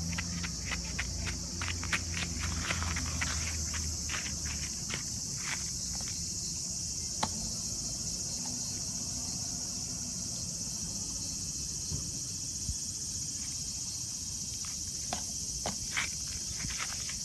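Steady high-pitched drone of summer insects. Light footsteps crunch on gravel in the first few seconds and again near the end.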